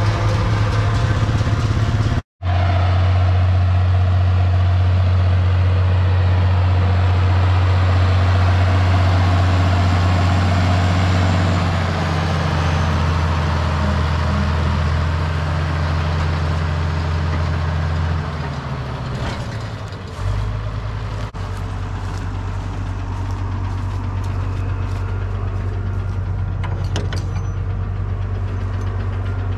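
International 1256 diesel tractor running a New Holland 790 forage chopper in the field, a steady heavy engine drone. About eighteen seconds in, it gives way to a lower, steady tractor idle.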